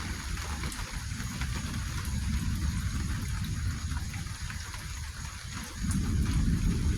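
Steady rain with the patter of individual drops. About six seconds in, a low rumble swells up beneath it.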